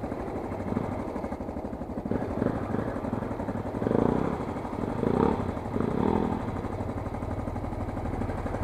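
Motorcycle engine running steadily, heard from on board the bike, its note swelling briefly three times around the middle.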